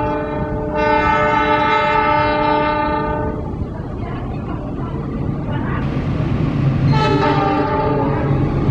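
Diesel locomotive sounding its multi-tone horn as it approaches: one long blast of about three seconds, then a shorter one about seven seconds in. Its engine drone grows louder as it nears.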